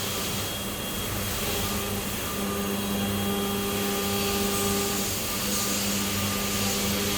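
Machining equipment running steadily: an even whirring noise with a constant hum and a faint high whine, the sound of a CNC machine at work.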